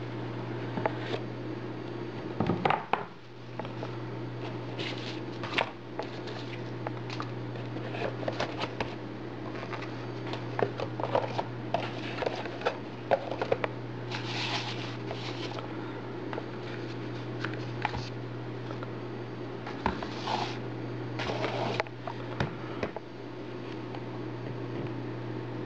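Hands handling a cardboard tablet box and its packaging: scattered rustles, scrapes and light taps over a steady low hum.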